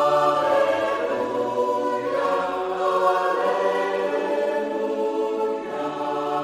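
A choir singing long held chords, shifting to a new chord about two seconds in and again near the end.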